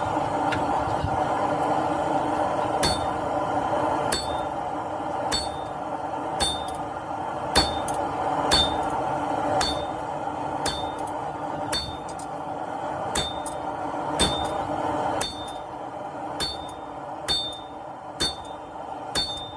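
Hammer blows on hot steel on an anvil, about one a second, each with a short bright ring from the anvil, as the 1-inch round stock is flattened and spread. A steady hum runs underneath.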